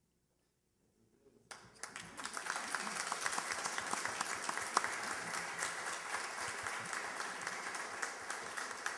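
Near silence, then an audience applauding from about a second and a half in, the clapping dense and steady.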